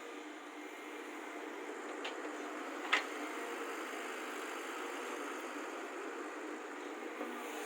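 Excavator running steadily, with a light click about two seconds in and a sharper knock a second later.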